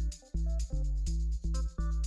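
Background music: an electronic track with a steady beat and bass notes.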